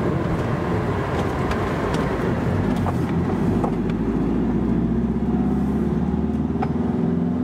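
Motorhome driving, heard from inside the cab: a steady engine and road noise. The engine note grows stronger in the second half.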